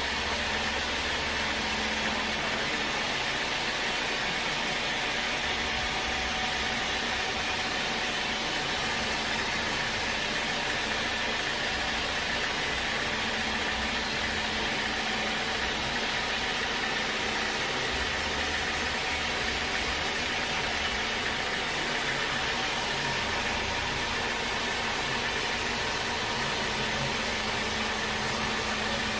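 Sawmill machinery running steadily: a constant engine-like hum with a dense, even hiss over it.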